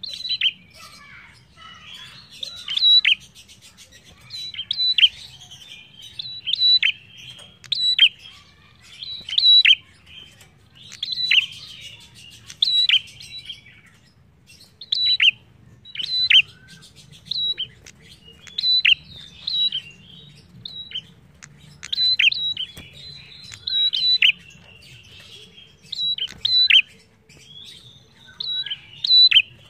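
Caged prenjak calling loudly and repeatedly: a sharp, high chirp that drops quickly in pitch, given about every one to two seconds, with softer twittering in between.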